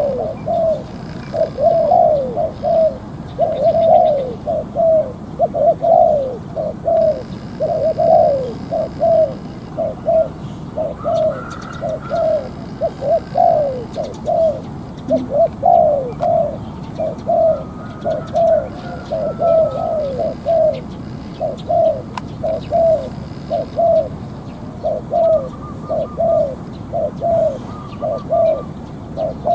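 A spotted dove (cu gáy), kept as a decoy bird, cooing without a break in a steady run of short coos about two a second. Faint, higher chirps from another small bird come in a few times.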